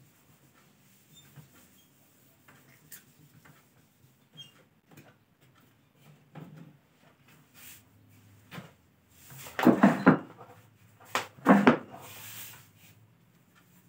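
A cloth duster wiping a whiteboard with faint scuffs and small clicks. Then come two short clusters of loud knocks, about ten and eleven and a half seconds in.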